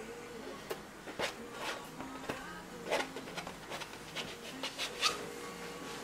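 Short, irregular scrapes and dabs of a painting tool working oil paint onto a stretched canvas, about a dozen brief strokes, over a faint steady hum.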